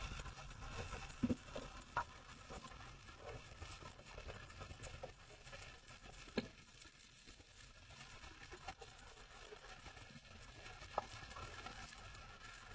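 Underwater ambience heard through a diving camera's housing: a low, steady wash with a few sharp clicks and knocks scattered through it.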